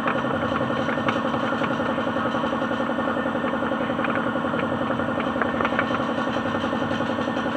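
Suzuki DA16 mini truck's engine running at a steady speed, with no revving, as the vehicle is taken out for a test drive after a transmission overhaul.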